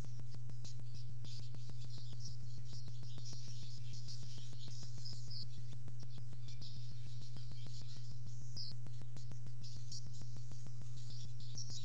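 Steady low electrical hum with a fast, even ticking, under high-pitched chirps that come and go throughout.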